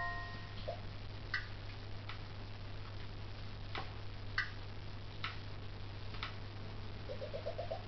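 Quiet room tone with a steady low hum and faint, irregularly spaced clicks, roughly one a second. Near the end comes a quick run of five or six short chirps, each a little higher than the last.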